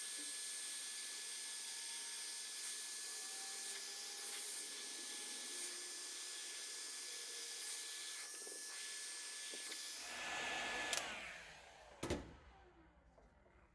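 Heat gun blowing steadily with a faint whine, heating the cylinder head so that a tight-fitting part will go in. It is switched off about eleven seconds in and winds down, and a single sharp knock follows about a second later.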